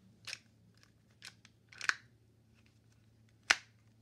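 A Shashibo magnetic shape-shifting cube being folded and turned by hand, its pieces clicking together. There are four sharp clicks spread apart, the loudest near the end.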